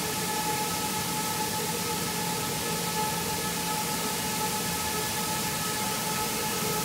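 Rice milling machinery running steadily: a constant hiss with several steady whining tones over it.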